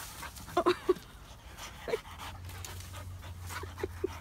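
Excited dog panting, with a few short, sharp squeaky breaths, three in quick succession about a second in and more near the end.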